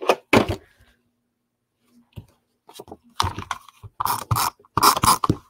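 A plastic paper trimmer and photo paper being handled on a tabletop: two sharp knocks at the start, a short pause, then a run of scratchy rubbing and light taps as the photo is pressed down onto a scrapbook page.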